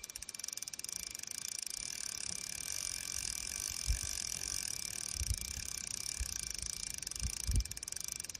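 Fishing reel ratchet clicking in a fast, even run of ticks, with a few soft knocks of handling near the middle and end.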